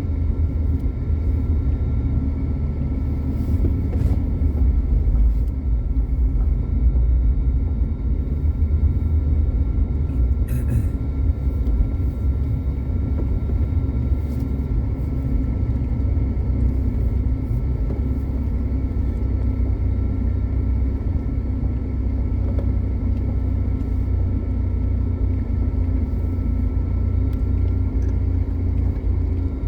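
Car engine running steadily with a deep low rumble and a faint constant whine as the car drives through packed snow.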